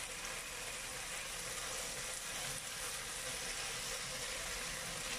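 Marinated slices of lean meat sizzling steadily as they stir-fry in a frying pan.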